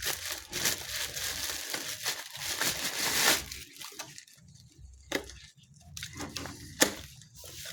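Packaging rustling and crinkling as a vacuum cleaner nozzle is handled and unwrapped, dense for about three and a half seconds. Then it goes quieter, with a few sharp clicks and knocks of parts being handled, the loudest near the end.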